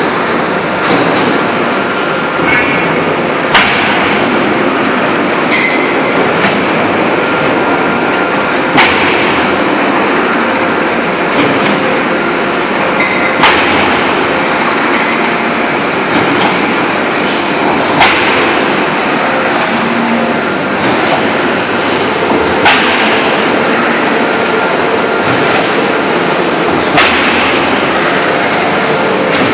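A 2000-ton open-die forging press working a red-hot ring amid a loud, steady hiss and rumble of forge-shop machinery, with a sharp metallic clank about every four to five seconds.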